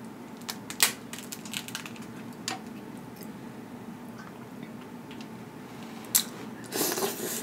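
Boiled crawfish shells cracking and snapping as they are peeled by hand, a few sharp clicks spread out over a low steady hum, then a longer wet slurp near the end as the juice is sucked out.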